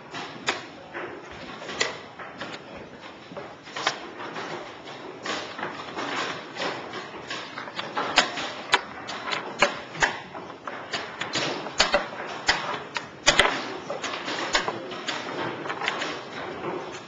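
Quick, irregular clicks and knocks of plastic chess pieces being set down and moved on a vinyl board during a blitz game, coming fastest in the middle of the stretch.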